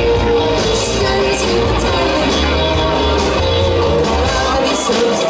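Live rock band playing over a PA: electric guitar and bass with a steady drum beat and a singing voice.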